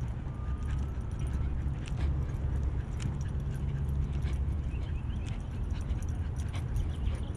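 Wind and footsteps on a head-mounted action camera's microphone while walking a small dog on a leash: a steady low rumble with light jingling clicks scattered through, and a brief thin whine about half a second in.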